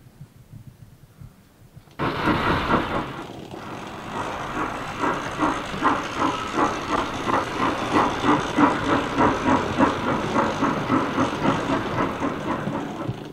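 Steam locomotive sound for a small crane tank engine: a sudden hiss of steam about two seconds in, then steady rhythmic chuffing at about three beats a second as the engine works.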